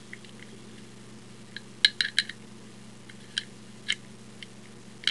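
A try-out key worked in an old door lock: a handful of sharp, irregular metallic clicks and clinks as the key and lock parts move.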